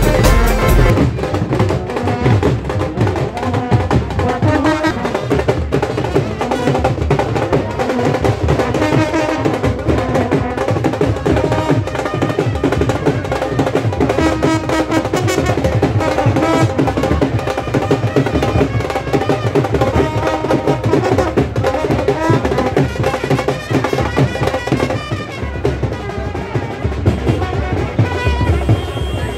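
Live wedding-procession music: a dhol, the double-headed barrel drum, beaten in a fast, driving rhythm, with a brass band playing a melody over it.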